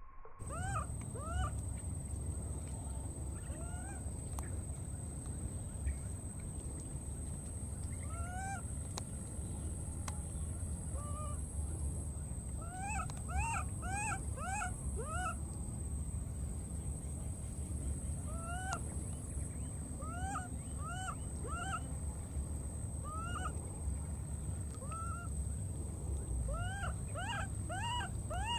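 Baby monkey crying: short, high-pitched arched cries, now single, now in quick runs of three to five, over a steady low rumble and a constant high whine.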